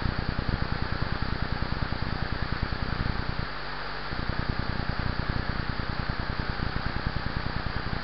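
Small waterfall cascading down a rock face: a steady rush of falling water with a dense low patter beneath it, which drops out for about half a second midway.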